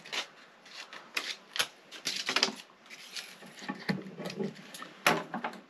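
Scissors snipping a paper template, with irregular crisp clicks and paper rustling.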